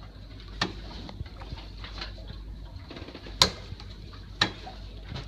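Steady low wash of sea water around the catamaran hull, broken by three sharp clicks: one about half a second in, one at about three and a half seconds, and another a second later.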